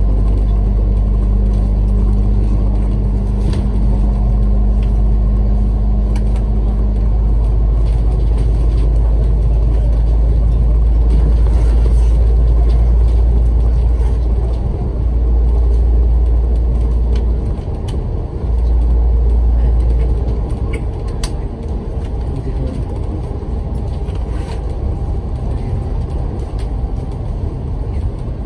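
Double-decker route bus on the move, heard from on board: a loud, steady engine and road rumble. The deep rumble drops back about twenty seconds in and the sound gets a little quieter.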